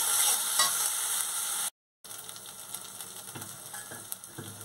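Spiced masala paste frying in oil in a kadai, sizzling with a steady hiss while a wooden spatula stirs and scrapes it. The sound cuts out for a moment just under two seconds in, then the sizzle returns quieter with a few soft knocks of the spatula against the pan.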